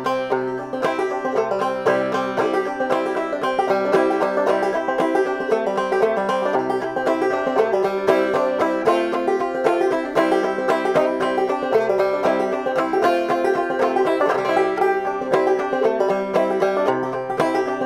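Bluegrass-style banjo music, a quick run of plucked notes over a steady bass line.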